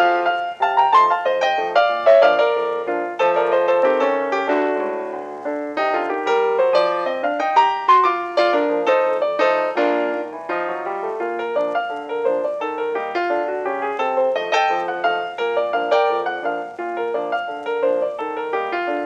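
Solo piano music with a flowing stream of quick notes.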